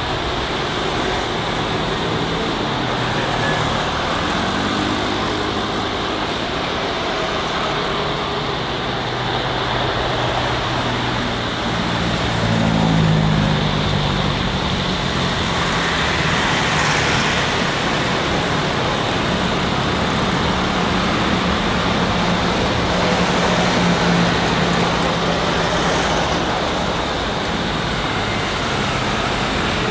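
Airbus A330-300 airliner's jet engines at taxi power: a steady rushing roar with a low hum that slides up and down in pitch, growing a little louder about twelve seconds in.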